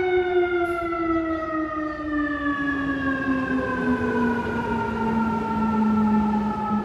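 Fire engine siren sounding one long wail that slides slowly and steadily lower in pitch after being wound up.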